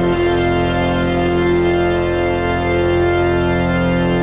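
Church organ playing held chords at the close of a hymn, the final chord released at the very end.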